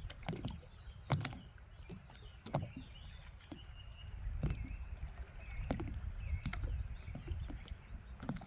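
Water lapping and knocking against a small boat, irregular sharp knocks and clicks over a low rumble, with faint bird twittering in the middle.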